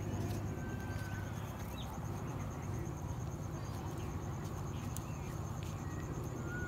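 Outdoor pond-side ambience: a steady high, pulsing insect trill over a low steady hum, with a few short bird chirps and faint clicks.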